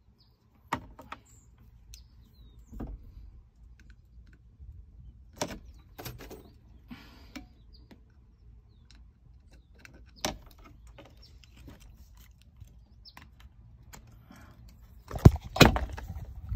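Scattered clicks and knocks of hands working on the truck's dash wiring and plastic trim, with a louder clatter of several knocks near the end.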